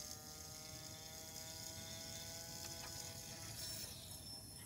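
Electric spin-up motor of a Super Precision Gyroscope humming steadily as it spins the rotor up, its pitch creeping slowly higher. It stops about four seconds in as the motor is lifted off, and a faint high whine from the freely spinning rotor carries on.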